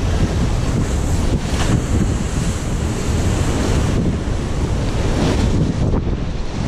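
Rough surf washing and breaking against concrete breakwater blocks, with wind buffeting the microphone in a steady low rumble.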